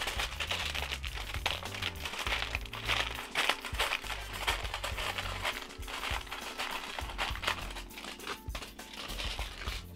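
Aluminium foil being peeled and picked off dried wood glue in a wooden frame's corner joint, crinkling and crackling almost continuously, over background music.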